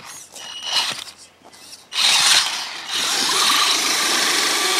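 A few light clicks and rattles, then a small electric motor and gears whir briefly about two seconds in. From about three seconds the motor runs steadily at speed, with a whine that rises slightly in pitch.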